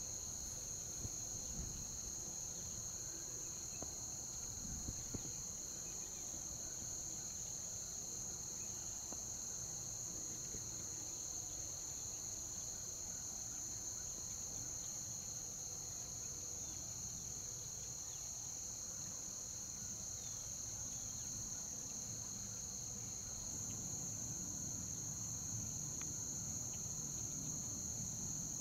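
Steady, unbroken high-pitched chorus of insects in marsh grass, with a few faint ticks in the first five seconds.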